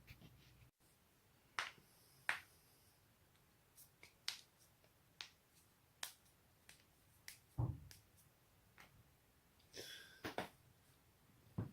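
A run of sharp cracks and pops from neck and back joints being cracked, spaced irregularly about a second apart. One deeper, louder crack comes about two-thirds of the way in.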